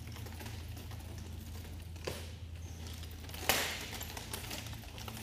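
Nunchaku being swung and twirled during a kata. A faint sharp sound comes about two seconds in, and a louder sharp one with a short tail about three and a half seconds in. A steady low hum runs under it.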